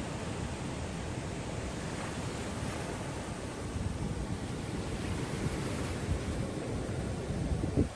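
Steady rush of surf with wind buffeting the microphone, and a short louder bump of wind near the end.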